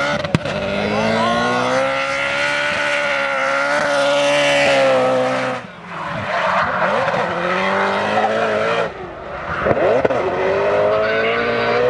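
BMW drift car's engine held at high revs through a smoky drift, its note wavering, with the tyres screeching. The engine note drops away briefly twice, about halfway through and again near three quarters, each time climbing again.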